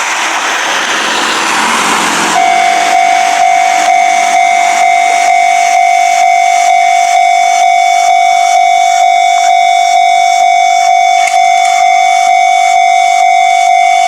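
Railway level-crossing warning bell ringing, a steady electronic chime that pulses about twice a second. It comes in abruptly after about two seconds of loud rushing noise.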